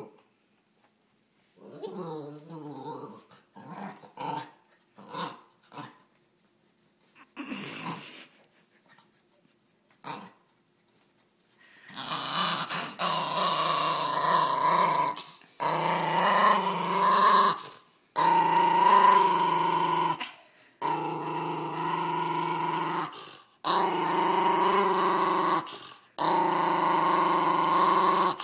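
Small long-haired dog growling angrily, guarding its pillow as a hand tugs it away. The growls come short and quieter with pauses at first, then from about halfway through turn into long, loud growls, each a few seconds, broken only by brief breaths.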